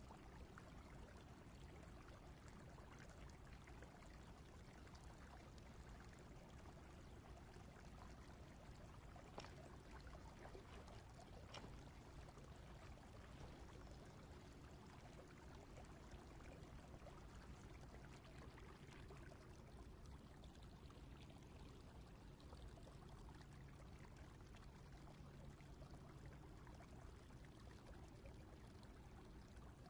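Faint, steady rush of flowing stream water, with two faint clicks about ten seconds in.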